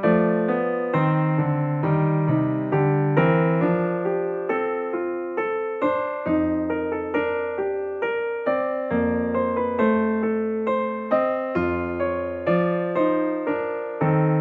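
Background piano music: a melody of struck notes, each fading away after it sounds.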